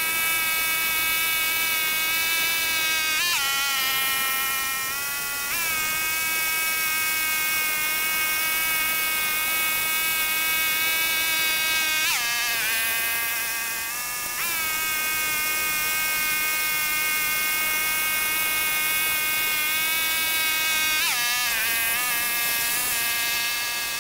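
Pasquali 996 tractor's engine running hard while driving a rotary tiller through ploughed soil, a steady high buzz. Its pitch drops and wavers three times, about 3, 12 and 21 seconds in, then climbs back up.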